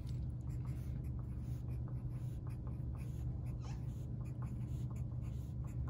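Graphite pencil scratching short, irregular strokes on paper, writing small grid numbers along the margin, over a steady low hum.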